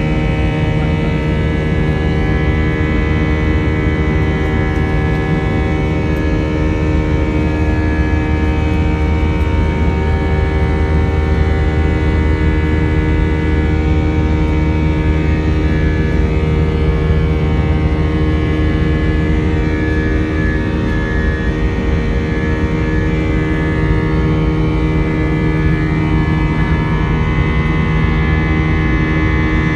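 Cabin noise of a jet airliner's turbofan engines during the climb after takeoff: a loud, steady drone with a deep hum and several steady tones layered over it.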